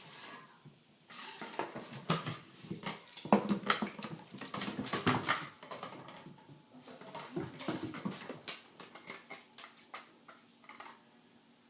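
Kitten playing with a cardboard toilet-paper tube: a busy run of light taps, clatters and scuffs as the tube is batted and knocked about on the floor. It is busiest a few seconds in and trails off near the end.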